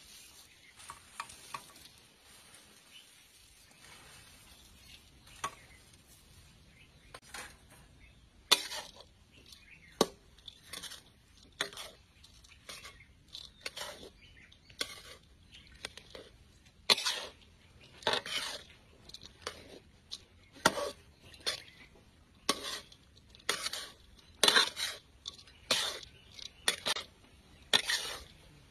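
Metal spatula scraping and clanking against a large metal kadai as poha is stirred and tossed. The strokes are irregular, faint at first and then louder and more frequent from about a third of the way in, roughly one or two a second.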